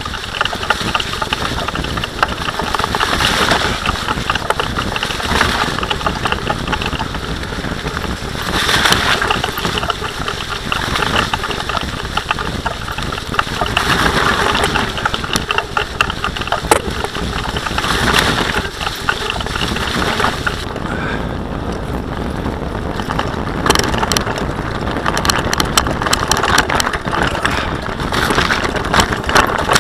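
Bicycle rolling fast over a rough dirt trail behind a running dog team: a continuous rumble of tyres and frame that swells and fades, with sharp rattles and knocks coming thick and fast over the last third.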